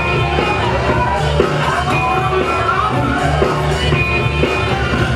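Loud music with a steady, pulsing bass beat, played over the event's sound system for the dancers.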